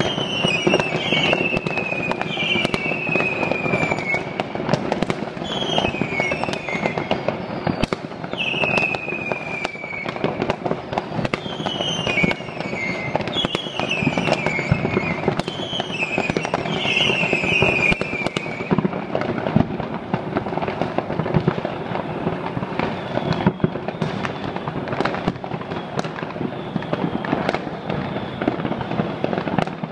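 Many fireworks and firecrackers going off at once, a dense run of bangs and crackles. Through the first twenty seconds there are about a dozen whistles, each falling in pitch.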